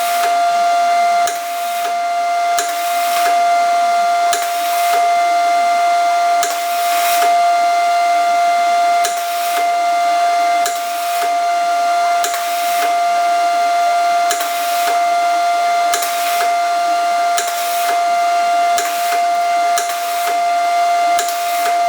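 Grinder running with a steady high whine, grinding steel to prep a spot for welding, with a rasping hiss that swells and fades many times as the wheel works the metal.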